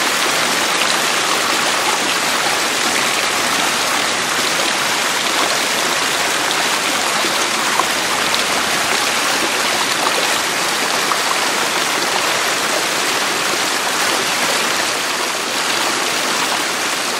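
Running water of a stream, a steady, even rushing with no breaks or other sounds.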